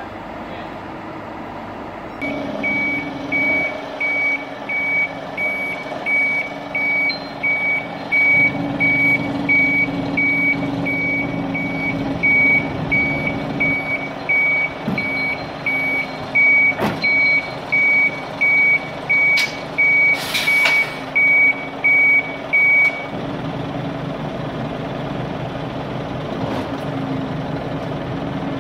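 Scania R580 truck reversing: its reverse alarm beeps at a steady pace, about three beeps every two seconds, over the V8 diesel running at low revs. The beeping starts a couple of seconds in and stops a few seconds before the end, with a brief hiss shortly before it stops.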